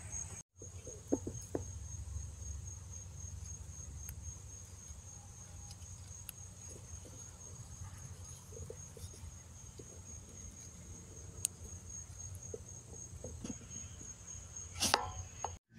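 Crickets trilling steadily, a thin, high, pulsing chirp. A few faint rustles and snaps come from cucamelon vines being handled, with a louder rustle near the end.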